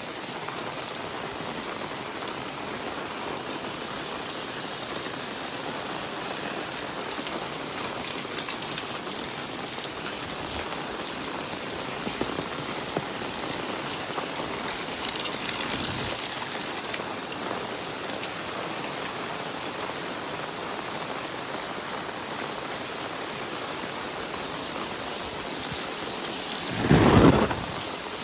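Steady rain falling and pattering on surfaces, with a milder swell about halfway through and a brief, loud low rumble near the end.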